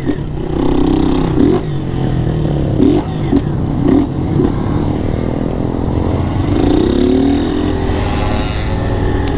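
Honda CG 160 Start's single-cylinder engine, running with its air filter removed, rising and falling in a series of short throttle blips while riding, with a longer rev about seven seconds in.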